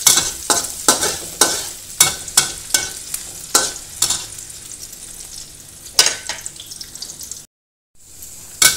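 Sliced shallots and garlic sizzling in hot oil in a wok, with a metal spatula scraping and knocking against the pan as they are stirred. The strokes come about twice a second at first, then grow sparse. The sound cuts out for a moment near the end.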